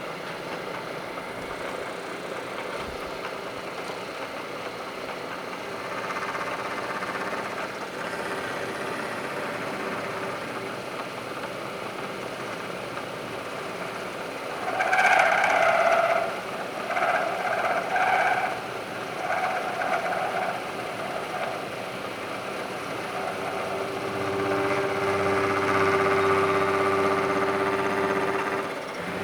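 Milling machine running with the cutter taking a cut: a steady mechanical hum, broken about halfway through by several loud, high-pitched bursts from the cut, then a steadier pitched whine near the end.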